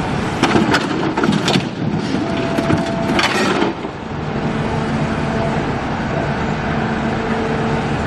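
Heavy machine running steadily, its engine and hydraulics humming, with clusters of sharp cracks and crunches from about half a second to a second and a half in and again around three seconds in, like material being broken or crushed.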